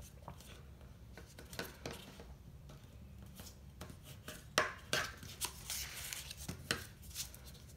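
Bone folder creasing folds in a sheet of paper on a cutting mat, with paper being handled: scattered light scrapes and taps, the sharpest a few about four and a half to five seconds in.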